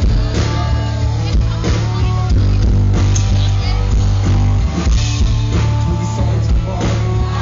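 Live rock band playing loud through a concert PA, with electric guitars over drums and a heavy, booming bass end, recorded from within the audience.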